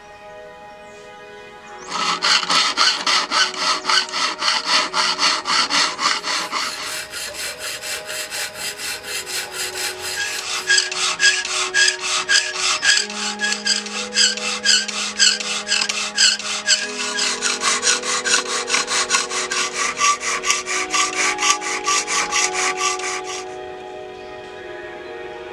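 Hand file worked back and forth over the steel katana blade in a filing jig, cutting the bevel: rapid, even rasping strokes that start about two seconds in and stop near the end.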